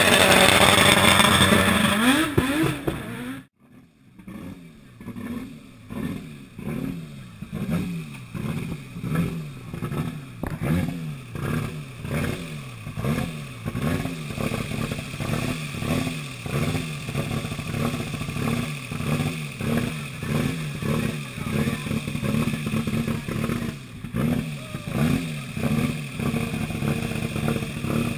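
A rally car's engine at high revs, loud and close for the first three seconds. After a sudden cut, an engine is blipped over and over, the pitch rising and dropping back about once a second.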